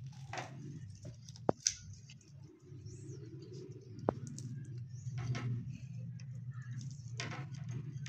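Close-miked eating sounds: chewing and soft mouth smacks as paratha with potato curry is torn by hand and eaten, with two sharp clicks in the first half, over a steady low hum.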